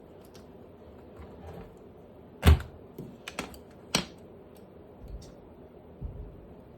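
Hands handling objects: a single thump about two and a half seconds in, followed by several sharp clicks and a few lighter knocks.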